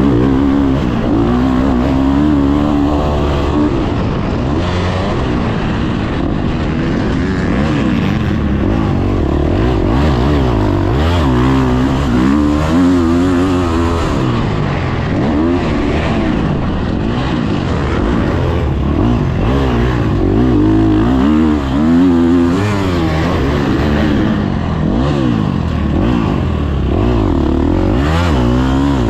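Dirt bike engine heard close up from the rider's own motocross bike, revving up and falling back again and again as the rider accelerates and backs off around the track.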